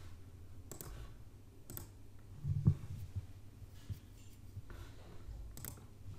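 Faint clicking at a computer during a Windows sign-in: a few separate sharp clicks, about a second apart at first and once more near the end, with a low thump about two and a half seconds in over a quiet room hum.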